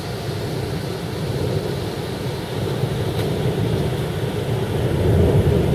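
Thunder rumbling low and long over steady heavy rain, the rumble swelling near the end.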